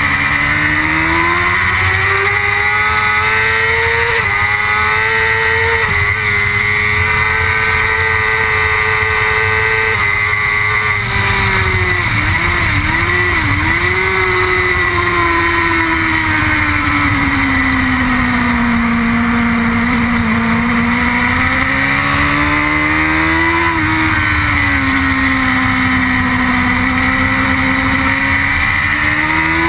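BMW S1000RR superbike's inline-four engine heard onboard at racing speed over steady wind rush. It climbs through two quick upshifts, holds high revs, drops through downshifts with throttle blips around the middle, slows through a long corner and pulls hard again near the end.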